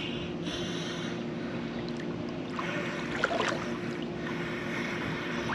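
Swimming-pool water sloshing and splashing as a snorkeller paddles, with a steady hum underneath and a few small splashes about three seconds in.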